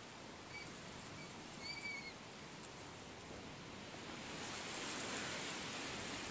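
Steady hissing outdoor background noise that swells louder about two-thirds of the way through, with a few faint, short, high chirps in the first two seconds.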